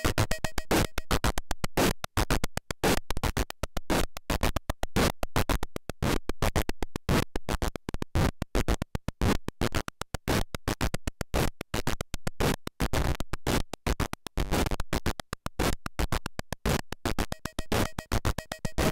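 Hand-built analog noise machine putting out a rapid, irregular stutter of harsh noise bursts and clicks, many per second, in a glitchy, chopped texture.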